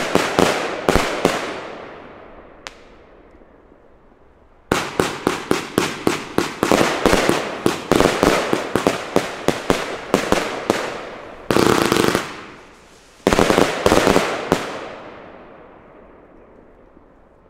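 A Riakeo Exodus 148-shot compound firework battery firing volleys of rapid, sharp shots and bursts. There is a lull of about three seconds after the first volley, a long volley follows, then a dense burst and a short last volley. The sound fades away over the last few seconds.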